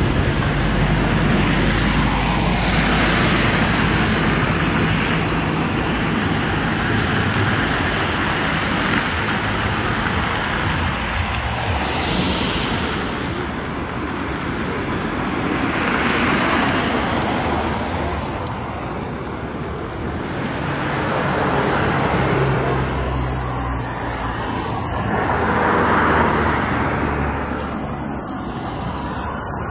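Steady road traffic noise with several vehicles swelling past, over a low, steady engine rumble.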